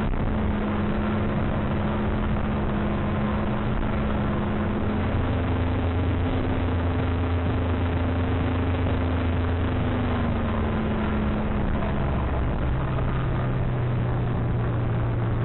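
Motorboat engine running steadily at cruising speed, its note shifting slightly a few times, with the rush of wind and wake water around the open cabin.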